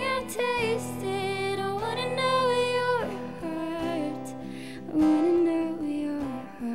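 Soft, slow song: a singer holding long notes that glide between pitches, over instrumental accompaniment.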